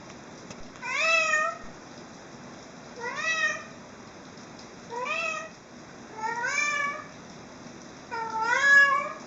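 Domestic cat meowing five times, about two seconds apart, each meow a short call that rises in pitch.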